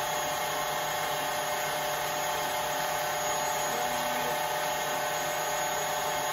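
Stand mixer motor running steadily on high with a constant whine, whipping egg whites into meringue.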